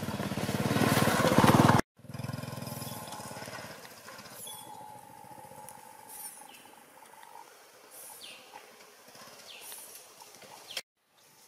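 Small step-through motorcycle engine running close by and getting louder, cut off suddenly about two seconds in, then fading away over the next two seconds. After that, birds call with several short, high, falling chirps.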